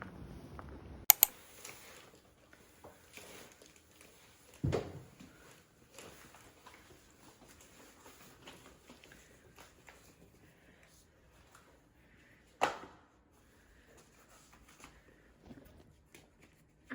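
Objects being handled in a small room: a sharp double click about a second in, a dull thud near five seconds, another sharp click near thirteen seconds, and faint scattered clicks in between.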